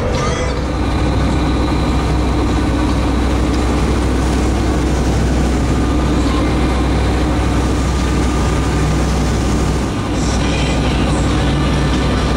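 Gillnet fishing boat's engine running steadily under way, a constant low hum under a wash of water and wind noise.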